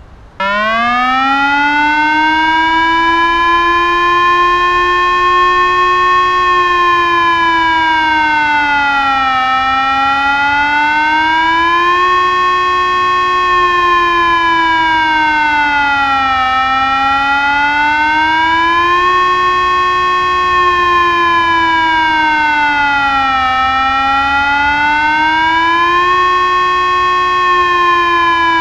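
TESLA UEAJ-600 electronic siren sounding the Czech 'General Warning' signal. It comes on about half a second in, climbs quickly to full pitch, then wavers: a slow fall and rise in pitch repeating about every seven seconds.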